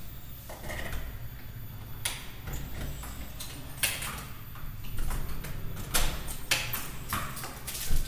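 A key being worked in a door lock and the lever handle rattled, giving an irregular series of sharp metallic clicks and rattles.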